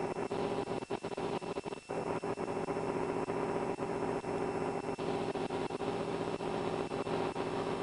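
Vehicle engine idling, a steady drone, with scattered short clicks and crackles over it.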